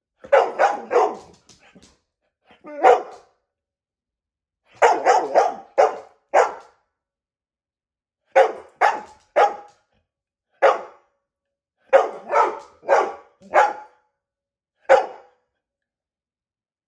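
A brown Labrador-type dog barking loudly and repeatedly. The barks come in short quick runs of three to five, with single barks and pauses of a second or two in between.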